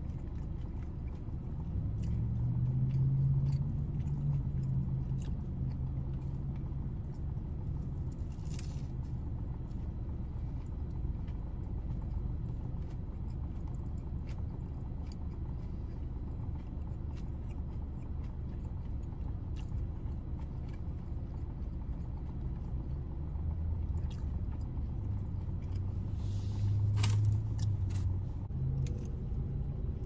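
Eating sounds from fried chicken: short chewing and biting clicks over the steady low rumble of a car cabin, with a brief hissy burst about a third of the way in and again near the end.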